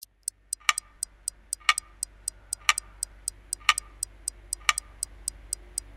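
Steady clock-like ticking: about four light ticks a second, with a stronger tick once a second, over a faint sustained tone.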